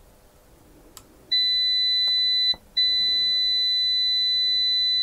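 GVDA GD128PLUS multimeter's buzzer sounding a steady, high-pitched continuity beep as the probes close across a near-zero resistance reading about 1.2 ohms. It starts just after a small click about a second in and breaks off once, very briefly, partway through.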